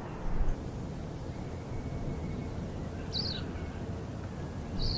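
Outdoor ambience: a steady low rumble, with two short, high bird chirps, one about three seconds in and one near the end.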